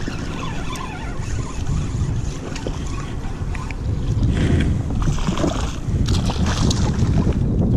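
Wind buffeting the microphone as a steady low rumble, with short hissy water noises a few times in the second half and scattered small clicks.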